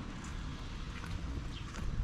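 Heavy rain falling steadily, with a few faint sharp taps of drops.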